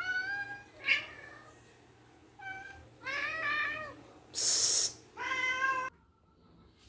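Domestic cats meowing for their breakfast: about five meows, some short and some drawn out, with a short burst of high hissing noise about four and a half seconds in.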